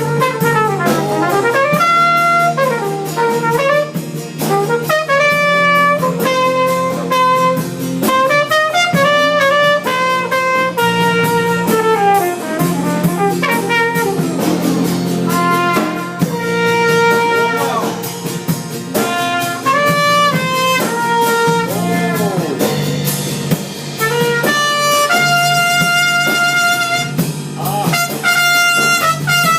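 Trumpet playing a jazzy melody, with held notes and pitch bends and slides, over a backing of sustained low notes and drums.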